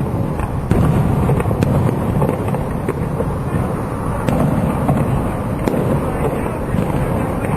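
A fireworks display going off: a continuous low rumble of bursts with several sharp cracks scattered through it.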